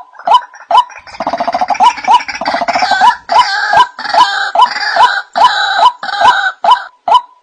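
White-breasted waterhen calls: a steady run of short 'wak' notes about twice a second, with a denser, harsher chorus of calls layered over it from about a second in until near the end. This is a lure call used to attract waterhens.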